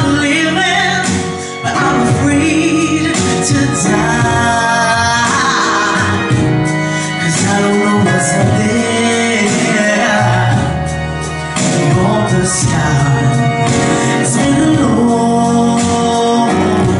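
A female soul singer singing live over a backing band, her voice sliding and bending through held notes above a steady bass and drums.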